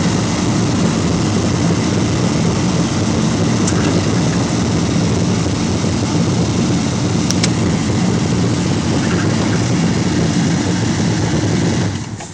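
Steady, loud rush of wind and road noise inside a moving vehicle with a window open. It drops away sharply near the end.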